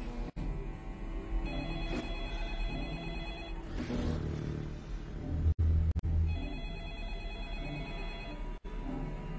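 Telephone ringing in bursts of about two seconds, with a pause of several seconds between rings. About halfway through, a deep booming hit from the film score is the loudest sound.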